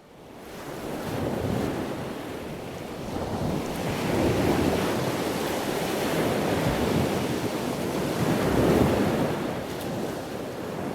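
Wind blowing across the microphone in gusts: a rushing noise that swells about four seconds in and again near nine seconds, with water washing beneath it.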